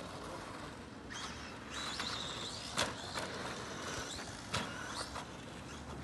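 Radio-controlled car racing round a dirt track, its high whine rising and falling in pitch as it speeds up and slows. A few sharp knocks come near the middle and later.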